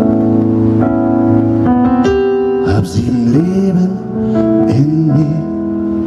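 Rock band playing live: held keyboard chords under a gliding melody line.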